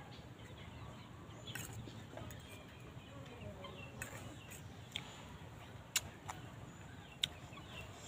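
Quiet eating with a fork: a few sharp clicks of the metal fork against the plate over the last few seconds. Faint bird calls in the background.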